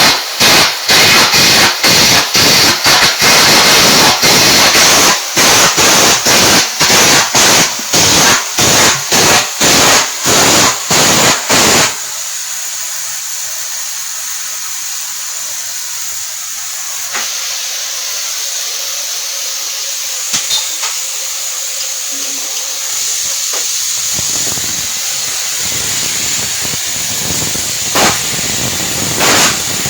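Electric arc welding: a loud crackling arc that breaks off and restrikes about twice a second for the first twelve seconds or so, then a quieter steady hiss with a few clicks.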